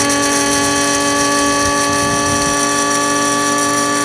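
Krups electric spice and coffee grinder running, grinding fennel seeds and crushed red pepper flakes: a loud, steady motor whine at full speed.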